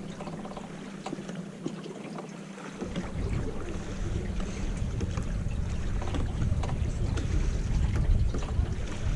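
Wind buffeting the microphone on a moving aluminium jon boat, dropping out for about two seconds near the start and then coming back stronger, over a steady low hum and light water noise against the hull.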